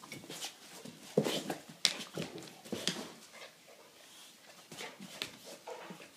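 American bulldog playing with a knotted rope tug toy: a string of short, irregular sounds from the dog and the toy, loudest about one to two seconds in, quieter for a second or so past the middle.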